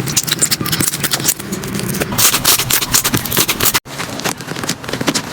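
Slime being squeezed and pressed by hand: a dense run of sticky clicks, crackles and pops. The sound drops out for an instant a little under four seconds in, then the clicking picks up again.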